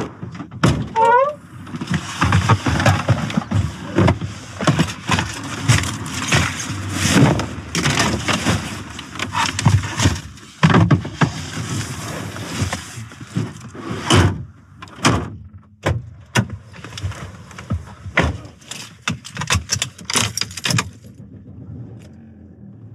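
Boards and gear being handled and loaded into the back of a car: irregular knocks, thuds and rustling, dying down near the end.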